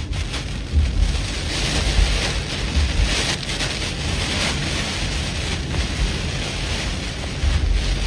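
Hurricane rain pouring steadily, while strong wind gusts buffet the microphone in repeated low rumbles.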